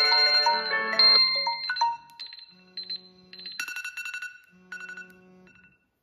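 Timer alarm tones from several smartphones, including an iPhone 6, a Honor 8A and a Samsung Galaxy Fold, ringing over one another, with a phone's vibration motor buzzing in pulses. The tones drop out one by one from about two seconds in, leaving a few sparse chime phrases, and everything stops shortly before the end.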